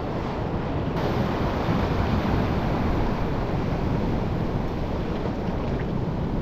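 Steady wind buffeting the microphone over the rush of sea surf and swell.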